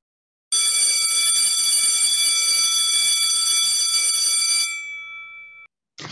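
Electric bell ringing steadily for about four seconds, starting abruptly, then stopping and its ring dying away over about a second.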